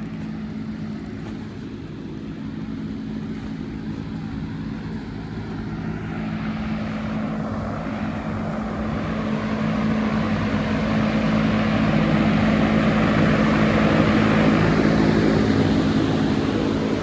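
Large ventilation fans running with a steady motor hum and a rush of moving air that grows louder over the second half, typical of greenhouse exhaust fans.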